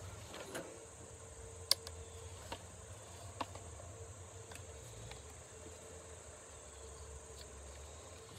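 A few sharp clicks and knocks from a McCulloch Pro Mac 610 chainsaw being handled at its rear handle and trigger while the engine is off, the loudest click about two seconds in. A faint steady insect chirring runs underneath.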